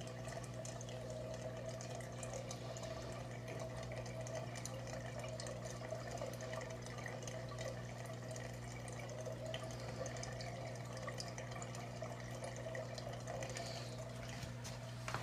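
Aquarium water pump running with a steady hum, with water trickling and bubbling over it.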